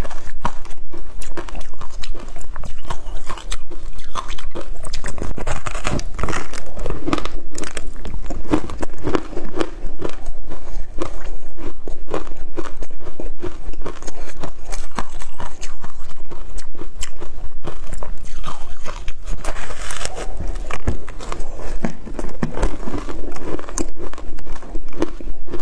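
A person biting and crunching through a block of frozen matcha ice, a dense run of crisp cracks as the ice breaks between the teeth, with chewing in between.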